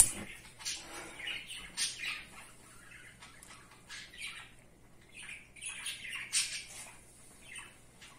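A bird chirping and squawking in short, irregular calls, loudest a little past the middle. A single sharp click at the very start as the gas burner lights under the pressure cooker.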